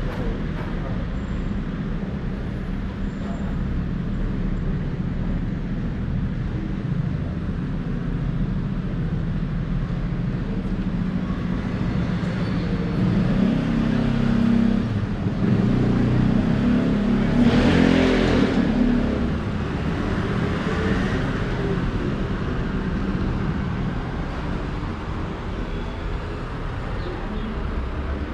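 City street traffic: a steady low rumble of car engines and tyres, with one vehicle passing close by, growing louder and fading, loudest a little past halfway.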